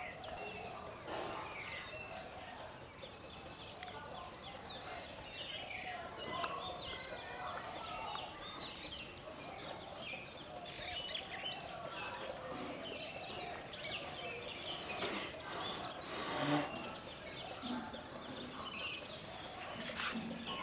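A flock of birds chirping and chattering, many short calls overlapping without a break. Two brief bumps come in the last few seconds.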